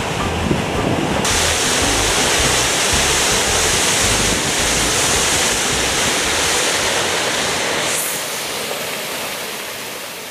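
Small waterfall pouring over a stone weir into a shallow pool: a steady rush of water that grows brighter about a second in and fades away near the end. Low wind buffeting on the microphone underneath.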